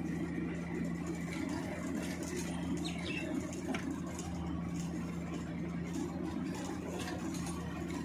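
Steady diesel engine drone with a constant low hum, from the power unit that drives a Giken press-in sheet piler's hydraulics.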